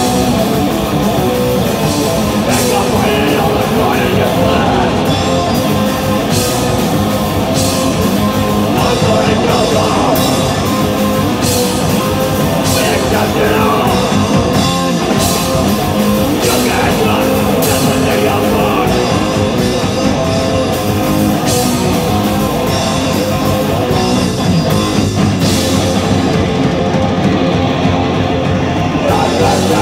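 Live punk band playing loud and fast: distorted electric guitars, bass and drums, with cymbal crashes cutting through.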